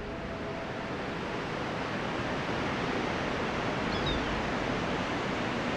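Ocean surf washing onto a beach, a steady hiss of waves that builds slightly over the first few seconds, with a faint high chirp about four seconds in.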